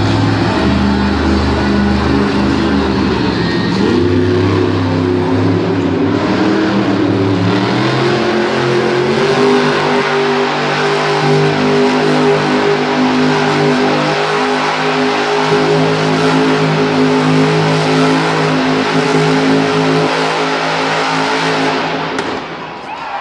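Grave Digger monster truck's supercharged V8 engine held at high revs while the truck spins donuts on the arena dirt. The revs climb about four seconds in, hold high and steady, then drop off just before the end.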